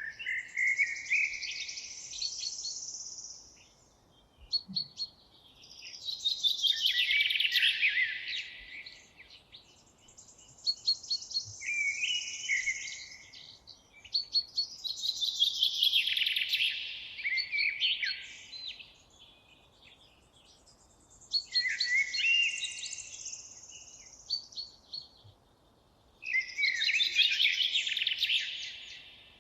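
A songbird singing in phrases, about six in all, each a few seconds of quick, varied high notes and trills, with short pauses between them.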